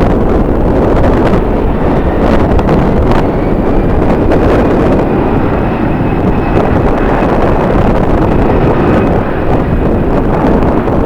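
Strong wind buffeting the microphone, a loud, even rumble that swells in gusts. About three seconds in, a faint steady high whine of a jet engine comes in and holds, rising slightly near the end.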